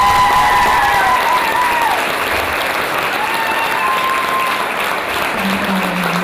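Audience applauding steadily, with a few long calls from the crowd rising and falling over it.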